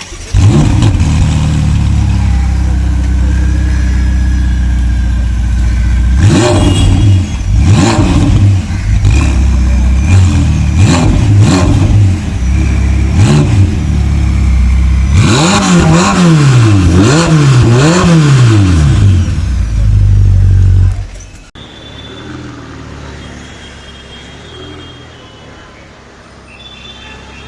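High-performance engine idling close by and revved repeatedly: a few short blips, then three quick revs in a row that each rise and fall. The engine sound stops abruptly about 21 seconds in, leaving faint street traffic.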